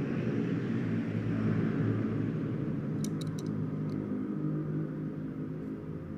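Car engine running with a deep, steady rumble that slowly fades, likely an engine soundtrack laid under the footage. A few small clicks come about three seconds in.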